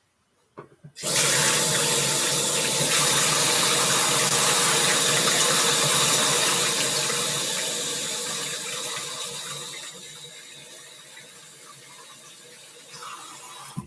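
Kitchen tap turned on and running hard into a sink about a second in. After several seconds the flow gets quieter, and the tap shuts off sharply near the end.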